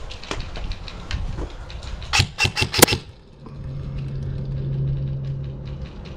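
Airsoft gunfire: a quick run of sharp cracks about two seconds in, after scattered lighter clicks, then a steady low hum for a couple of seconds.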